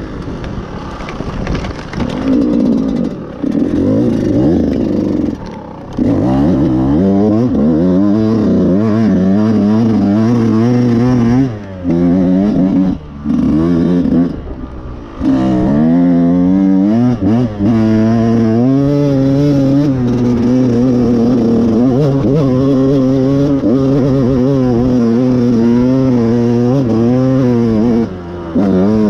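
Dirt bike engine under hard throttle on a climb, revs rising and falling, briefly dropping off several times as the throttle is shut, then held high and fairly steady through the second half.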